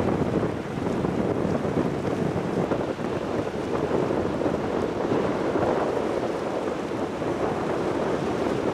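Steady low rushing noise of wind on the microphone, mixed with the rumble and wash of the car ferry Bretagne passing close by.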